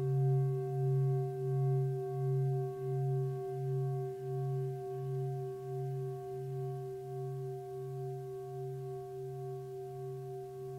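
Singing bowl ringing and slowly fading, its deep hum wavering in a slow, even pulse.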